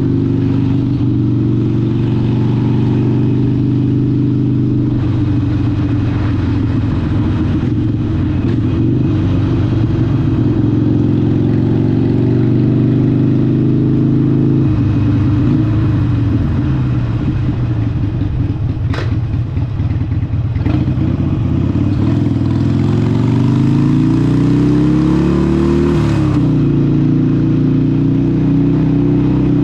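Harley-Davidson 883 SuperLow's air-cooled 883 cc Evolution V-twin running through a Vance & Hines exhaust while riding. The engine note wavers through the middle, with two brief sharp clicks, then rises steadily in pitch as it accelerates for about four seconds before dropping suddenly as the throttle comes off.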